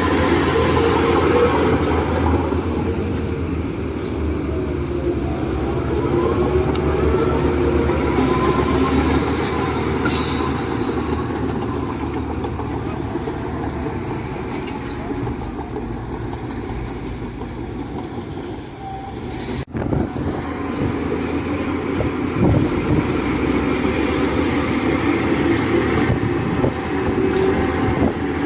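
Heavy diesel engines of a bulldozer and garbage trucks running steadily at work. A short hiss comes about ten seconds in, and the sound breaks off for a moment just before twenty seconds.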